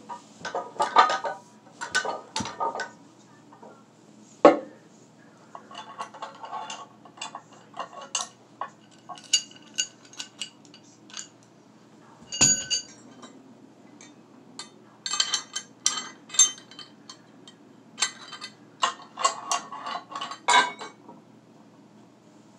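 Clinking and rattling of metal lifting gear: a steel carabiner, loading pin and rolling grip handle knocking together over iron weight plates. Clusters of light clinks, with two heavier metal clanks about four and twelve seconds in.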